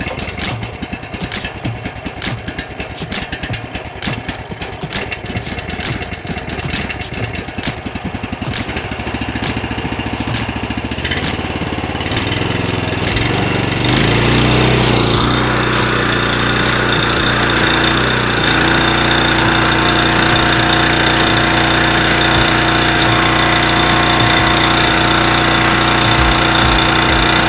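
Simpson PS4240H gas pressure washer's Honda GX390 engine, just pull-started cold with the choke on, running rough and uneven at first. About halfway through it settles into a smooth, steady, louder run.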